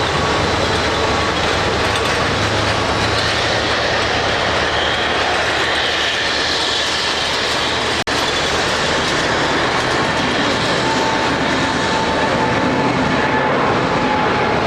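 Airliner on its take-off roll: steady jet engine noise with the landing gear rumbling and clattering over the runway, and a faint whine above it. The sound cuts out for an instant about eight seconds in.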